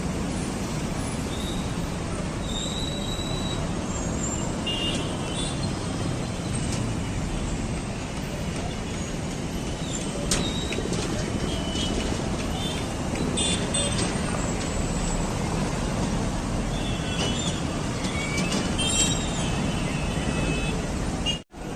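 Road traffic: a steady rumble of passing vehicles, with short high squeaks and chirps scattered through. The sound cuts out briefly near the end.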